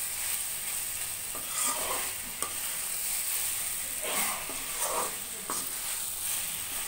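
Fried cabbage Manchurian balls sizzling in tomato sauce in a kadai over medium flame, with a steady hiss. A spatula stirs them, scraping and clicking against the pan in a few strokes.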